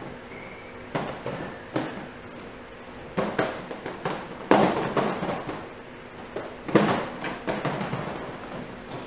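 Puppies playing rough, tumbling and bumping into the wire-panel playpen: a string of irregular knocks and rattles of the metal grid, the loudest about halfway through and again near the end.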